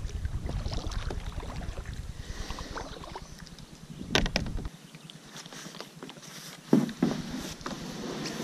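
Kayak being paddled up to a grassy bank, with small water and hull noises over a low rumble and a sharp knock about four seconds in. It goes quieter after that, with a couple of thumps from the plastic kayak near the end.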